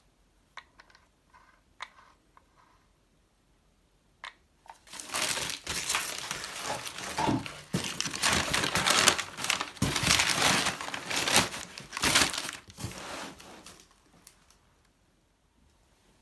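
Packing material being crumpled and rustled by hand, a loud irregular crinkling that lasts about nine seconds after a few light clicks of handling.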